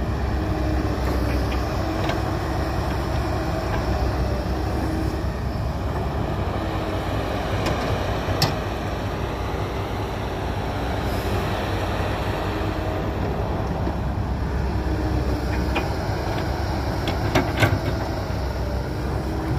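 Heavy diesel engine of construction machinery running steadily, with a few sharp metallic knocks: one about eight seconds in and a short cluster near the end.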